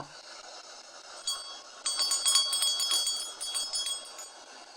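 Small antique hand bell shaken, its clapper striking rapidly for about two and a half seconds over a steady high ringing.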